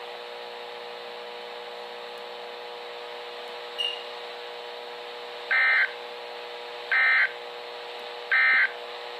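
Three short bursts of digital data tone from a NOAA Weather Radio EAS/SAME broadcast, about a second and a half apart in the second half. They are the end-of-message code that closes the weekly test, heard over a steady radio hiss and hum.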